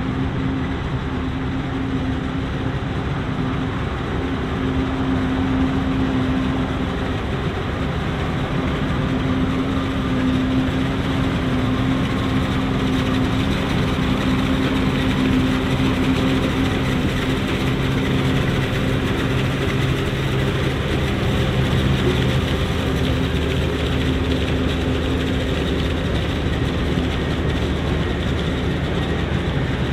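John Deere self-propelled forage harvester working under load, chopping maize and blowing the chopped crop into a silage trailer, with a Claas tractor running alongside. A loud, steady machine drone with a constant hum.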